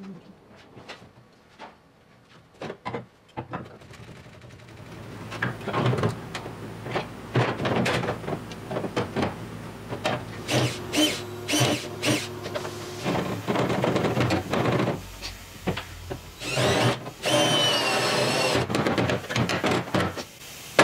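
A few light taps, then from about five seconds in a handheld power tool cutting and grinding into the car body's sheet steel in repeated bursts, its whine rising and falling under load near the end, as a rusted support by the rear bump stop is cut away.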